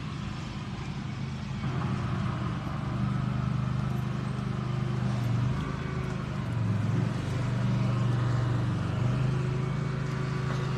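An engine running steadily with a low hum, its pitch dipping and rising again a few times.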